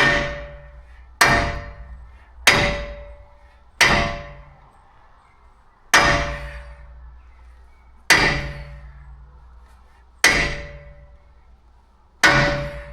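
Heavy hammer blows on a narrowboat's steel tiller stock, driving it out of the rudder. There are eight strikes, each ringing on briefly; they come about a second apart at first, then about every two seconds.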